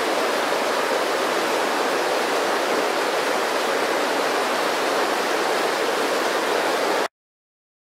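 Rocky river rushing over stones, a steady even rush of water that cuts off suddenly near the end.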